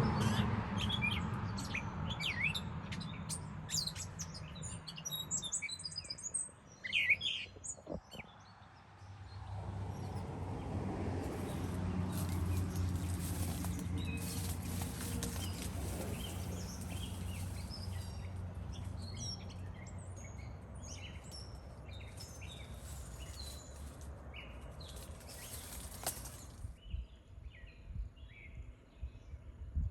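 Wild birds chirping and singing, many quick calls in the first several seconds and scattered calls after, over a low steady rumble that cuts out suddenly near the end.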